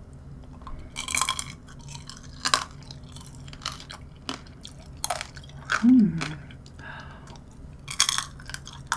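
Close-up chewing of a strawberry tanghulu: the hard, glassy sugar shell cracks and crunches between the teeth in irregular bursts, with juicy fruit chewing between them. About six seconds in, a short hummed vocal sound falls in pitch.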